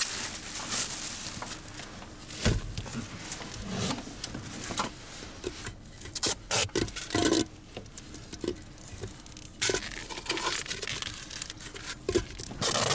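Tape being torn off and pressed on inside a car's cabin: irregular rustling and crinkling, broken by short tearing rips and scrapes.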